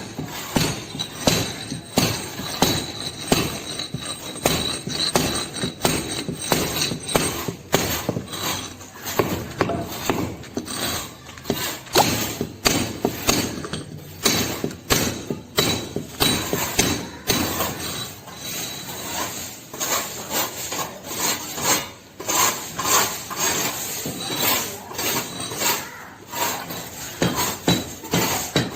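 Hand tools working on masonry: irregular knocks and scrapes, sometimes several a second, with no steady machine sound.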